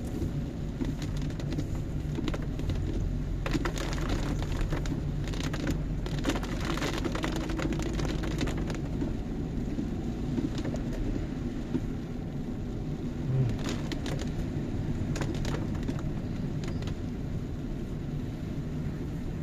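Inside a car's cabin, a steady engine and tyre rumble as the car pulls uphill on a wet road. Rain on the car adds a hiss and scattered ticks.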